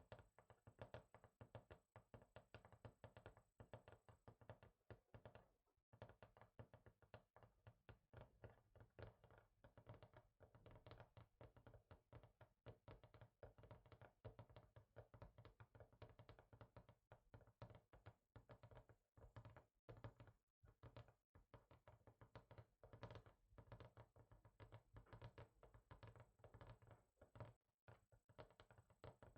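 Quiet, rapid finger tapping on a hard surface, many light taps a second, with a few brief pauses.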